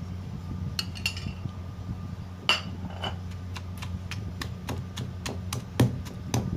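Pestle pounding chopped tomatoes with freshly ground spices in a mortar: a few scattered knocks, the sharpest about two and a half seconds in, then steady strokes about three a second. A low steady hum runs underneath.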